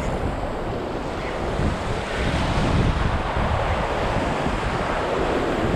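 Ocean surf breaking and washing through the shallows, with wind buffeting the microphone; the wash swells a little louder about two seconds in.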